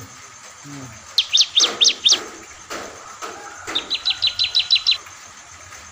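Caged ciblek songbird singing in loud, sharp, high chirps. A burst of about five piercing notes comes a little over a second in, and a fast run of about ten shorter notes follows nearly four seconds in.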